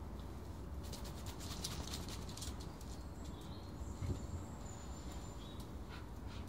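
An Alaskan malamute's claws clicking on wet brick paving as it walks about, in a quick cluster during the first couple of seconds. Faint high bird chirps come in about halfway through.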